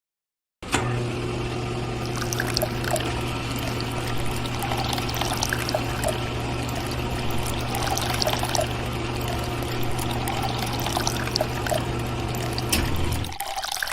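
A small electric water pump hums steadily while water pours and splashes out of it. It starts just after the beginning and cuts off near the end.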